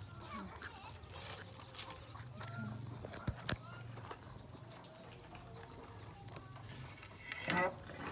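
Chickens clucking in short scattered calls, with a louder call near the end and a single sharp click about midway.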